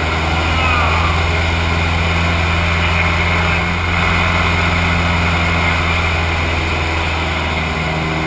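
Small aerobatic airplane's engine droning steadily inside the cockpit, with slight swells in loudness.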